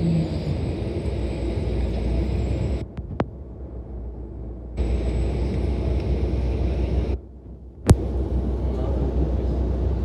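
City transit bus engine running, heard from inside the passenger cabin as a steady low rumble. It drops away briefly twice, and there is a single sharp click just before the eighth second.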